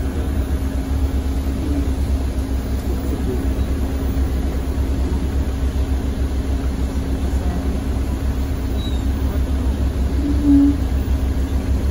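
Mercedes-Benz O405 city bus heard from inside the passenger cabin: a steady low engine and drivetrain drone with a constant hum, with one short louder hum about ten and a half seconds in.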